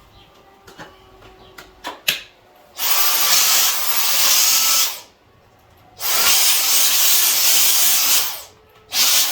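Dyson handheld vacuum's motor switched on and off in bursts: two runs of about two seconds each, with a third starting near the end, each starting and stopping abruptly with a high whine and rush of air, after a few light clicks. It is a test run after the filter and bin have been cleaned and refitted, to check the vacuum that had been cutting out.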